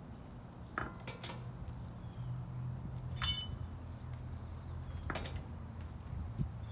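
Metal clinks and knocks of a lug wrench and lug nuts as a wheel is bolted back on: a few quick clicks, one ringing clink about halfway through, and another knock later, over a low steady hum.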